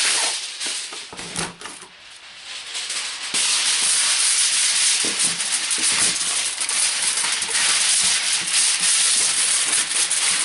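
Heavy-duty aluminium foil crinkling and rustling as it is wrapped and folded tightly around a block of wood. It eases off for a moment a second or two in, then goes on steadily from about three seconds in.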